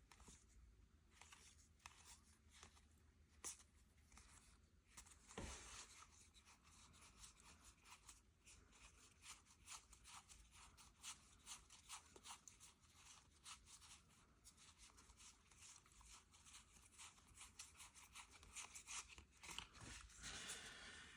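Faint rustling and light clicks of trading cards being handled and flipped through, with many small ticks scattered irregularly.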